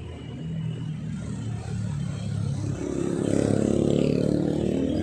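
Road traffic passing, with a heavy truck's engine growing louder from about three seconds in as it goes by.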